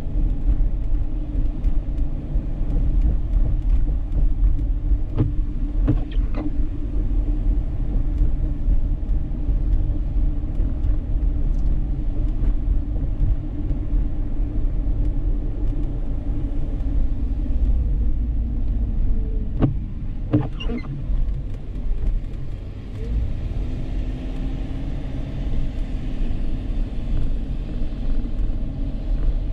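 A Dodge Charger's 3.5-litre V6 and tyres while driving: a steady low rumble of engine and road noise. A few short clicks or knocks stand out briefly, about a fifth of the way in and again about two-thirds of the way in.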